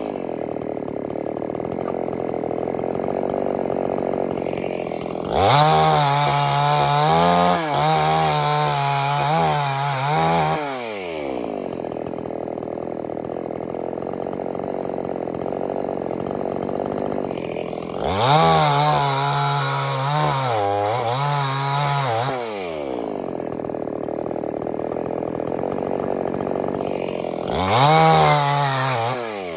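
Gasoline chainsaw idling, then revved to full throttle three times to cut through scrap lumber boards: a long cut about five seconds in, another at about eighteen seconds, and a short one near the end. Each time it drops back to idle.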